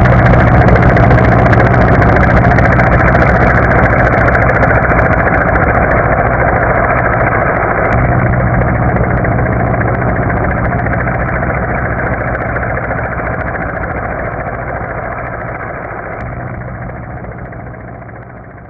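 Military combat helicopter's rotor and engine noise, a steady dense beat that grows gradually fainter toward the end.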